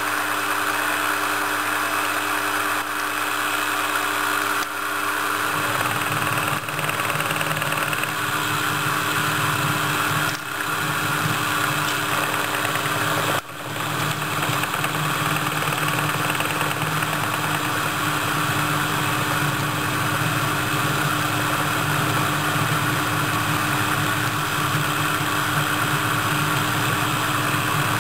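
JMD-1 benchtop milling machine running steadily as a 4 mm end mill cuts a pentagonal pocket into a duralumin ball, with a lower rumble joining about five seconds in.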